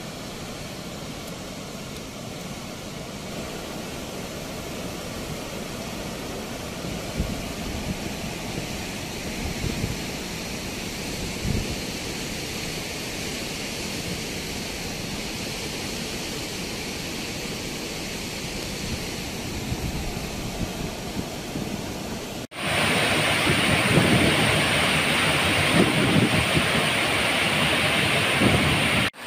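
Wind rushing over the microphone outdoors, a steady noise with occasional low buffeting thumps. About three-quarters of the way through it cuts to a louder, hissier rush of wind.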